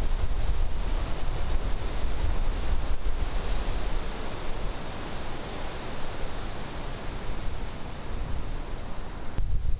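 Steady rush of a flood-swollen river's white-water rapids, with wind rumbling on the microphone, heavier near the end.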